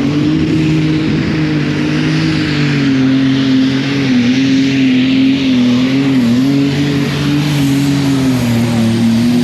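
Competition pulling tractor's engine running hard under load during a pull, a loud sustained drone whose pitch wavers slightly and sags a little toward the end.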